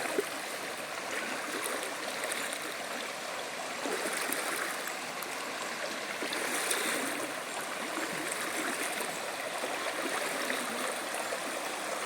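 Shallow river water running steadily over rocks, an even rushing and gurgling.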